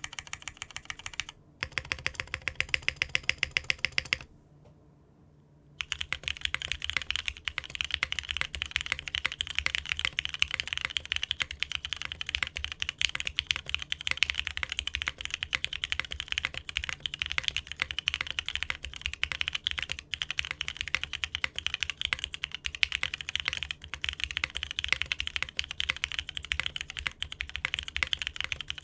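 Mechanical keyboard with Cherry-profile keycaps being typed on as a sound test. A short run of evenly spaced keystrokes is followed by a pause of about a second and a half, then fast, continuous typing.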